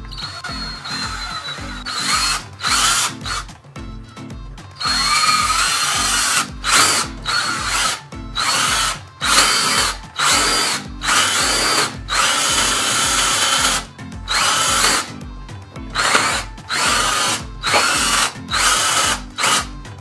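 Cordless drill with a spade bit boring a hole into a block of wood, run in many short bursts, its motor whine rising each time it spins up. Background music with a steady beat plays underneath.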